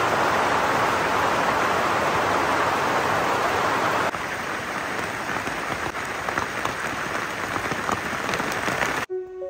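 Steady rain falling, a dense hiss. About four seconds in it drops to a lighter level with separate drops ticking, and it cuts off suddenly near the end.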